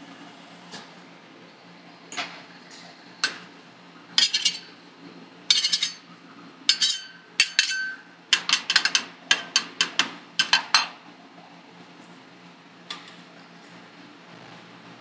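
Metal ice cream spatulas clacking and scraping against a steel cold plate, with a series of sharp metallic strikes that ring briefly. The strikes come in quick clusters through the middle, and a last single one follows near the end.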